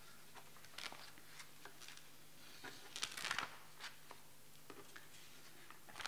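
Loose sheets of paper rustling as they are handled and turned at a lectern microphone, in short irregular bursts, loudest about halfway through, over a faint steady hum.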